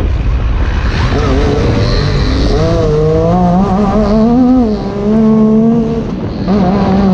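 UTV engine heard onboard under hard throttle, its pitch climbing and wavering, with two brief drops in revs a little past the middle before it settles at a steady pitch, over a heavy low rumble.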